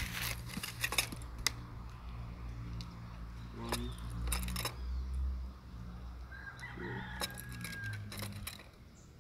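Light metallic clicks and rattles from an air rifle's action being worked and pellets being handled for loading, several sharp clicks in the first second or so and a few more about four seconds in and again near the end.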